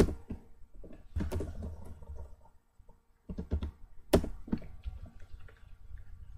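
Computer keyboard being typed on in short bursts of keystrokes, with a pause of about a second in the middle. The loudest key strike comes about four seconds in.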